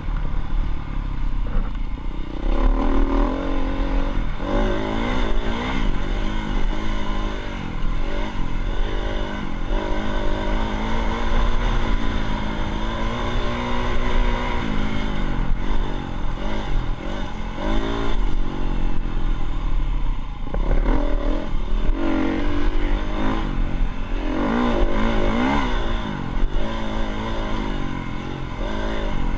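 Dirt bike engine being ridden, revving up and down over and over, its pitch rising and falling with each change of throttle.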